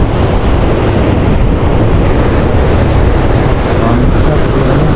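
Strong wind buffeting the microphone as a loud, steady low rumble, over the wash of rough surf breaking on a rocky shore.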